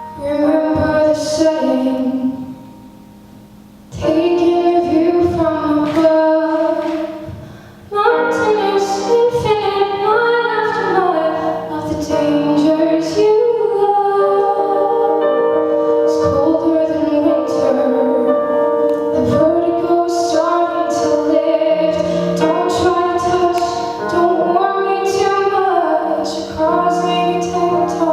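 A woman's solo voice singing a song with accompaniment, pausing briefly twice in the first eight seconds and then singing on without a break.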